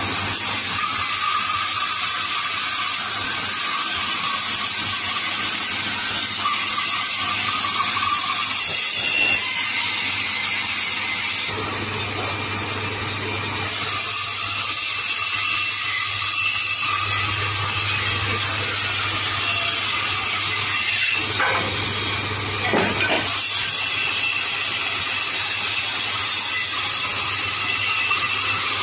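Woodworking band saw running and cutting through a block of wood: a steady motor hum under a continuous hiss from the blade. Two sharp knocks come a couple of seconds apart, about three-quarters of the way through.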